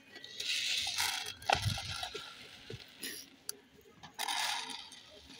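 Dry wheat grain scooped and poured from a plastic bucket onto a plastic lid: a rushing pour of grain for about two seconds with a dull plastic knock in the middle, then a second, shorter pour near the end.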